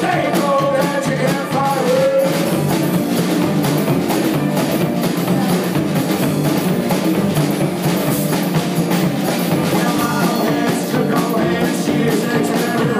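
Live band playing an up-tempo rock-and-roll arrangement: banjo and electric guitar over drums. A man's singing voice comes in at the start and again near the end.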